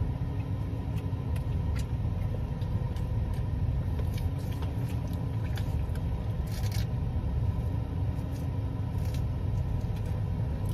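Steady low rumble, with faint scattered clicks and smacks of someone chewing food.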